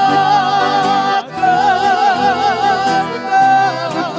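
Sertanejo vocal duo singing a romantic ballad in two-part harmony, holding long notes with vibrato over band accompaniment; the held notes break once about a second in and again shortly before the end.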